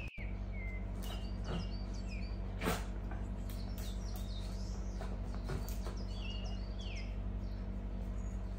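Small birds chirping in short, falling calls, scattered throughout, over a steady low hum. A single knock about two and a half seconds in is the loudest sound.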